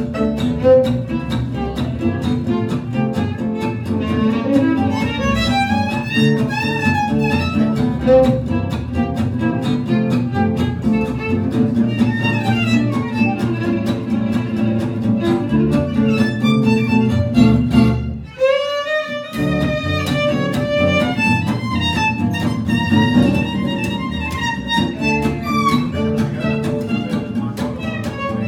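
Live trio of violin, acoustic guitar and upright double bass playing an instrumental tune, with the violin leading. About 18 seconds in, the guitar and bass drop out for about a second while the violin holds a note, then the full trio carries on.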